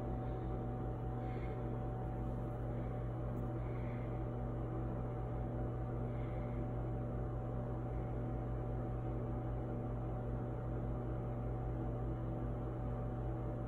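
A steady low electrical hum that holds unchanged throughout.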